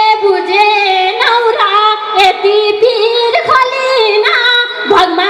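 A woman singing a Nepali dohori folk song through a microphone, her voice sliding between long held notes, over steady madal hand-drum beats.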